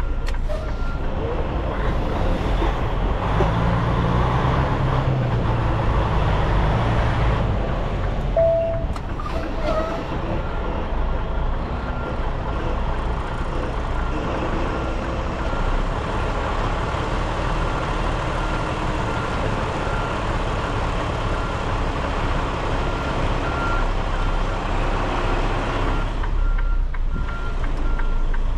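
Semi truck's diesel engine running steadily, with a backup alarm beeping about once a second through the second half.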